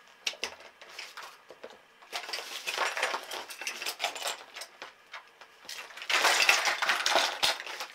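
Plastic toys clattering and knocking against each other and a clear plastic storage bin as hands rummage through it. There are two spells of busy clattering, the second one louder, near the end.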